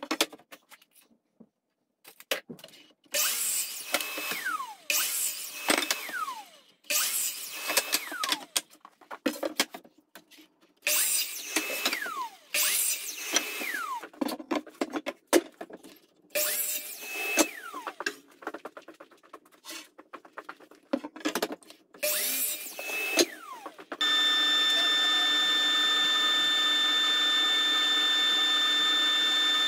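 DeWalt compound miter saw making repeated crosscuts through boards: about eight times the motor whines up, cuts, and winds down in a falling whine when the trigger is let go. Near the end a steady machine hum takes over.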